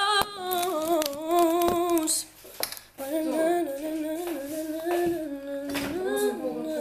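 A young woman humming a tune to herself, unaccompanied, in long held notes with a short break about two seconds in. A few light knocks sound alongside.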